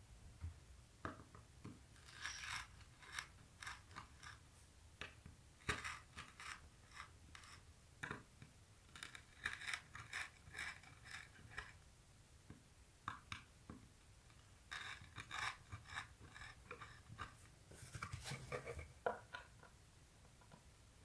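Phillips screwdriver being pushed and twisted through clear grip tape into a skateboard deck's truck-mounting holes: faint, irregular scraping and crunching as the gritty tape is punctured and ground open.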